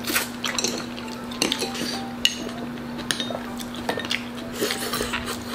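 Eating utensils clinking and scraping against dishes in scattered light taps while food is eaten, over a steady low hum.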